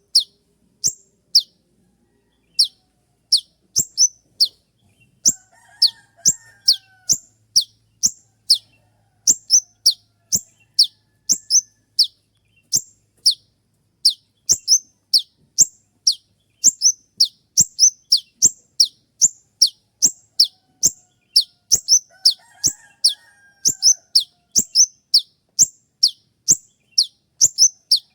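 Konin (kolibri ninja sunbird) calling a long series of sharp, high notes, each sweeping quickly downward, about one to two a second: the 'tembakan' shot call used to tutor caged songbirds.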